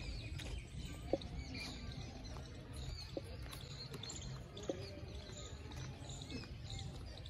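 Many small birds chirping and twittering over a steady low rumble. Three short, sharp sounds stand out: about a second in, about three seconds in, and just before five seconds.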